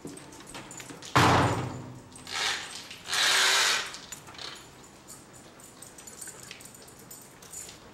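A sudden loud knock about a second in, then two scraping noises, the second lasting close to a second, with faint scattered clicks afterwards.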